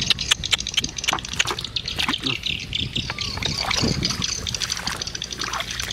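Water splashing and sloshing in a bucket as caught fish thrash and are handled, with many irregular splashes and knocks.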